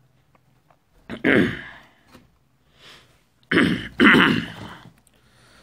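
A man clearing his throat and coughing, two harsh bursts: one about a second in, and a longer one starting sharply about three and a half seconds in.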